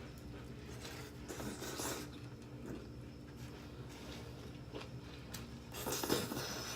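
Close eating sounds: a person chewing a sub sandwich, with soft wet mouth noises and a few faint clicks, strongest twice, over a low steady hum.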